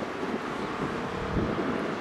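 Wind buffeting the microphone over a low, steady engine rumble.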